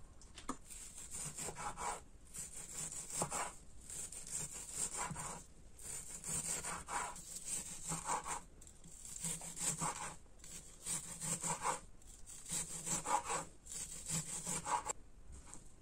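Kitchen knife dicing raw beef on a wooden cutting board: short runs of rasping back-and-forth cutting strokes against the wood, separated by brief pauses.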